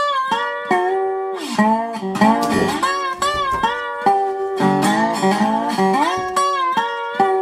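Background music: bluesy guitar with notes sliding and bending between pitches, like a slide guitar.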